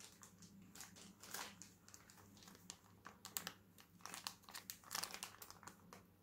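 Small clear plastic bag crinkling as it is handled, a faint run of short irregular crackles.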